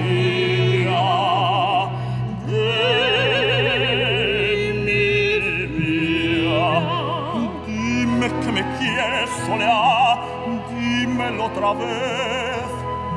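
Operatic singing in wide vibrato, mainly a tenor, over a symphony orchestra.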